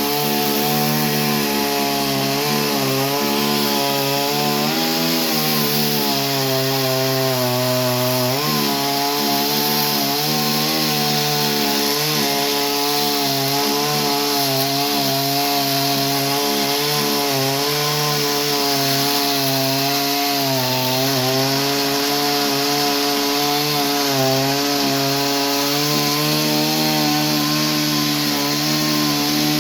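Chainsaw engine running steadily under load while cutting through wood, its pitch wavering slightly as the cut goes on, with a brief change about eight seconds in.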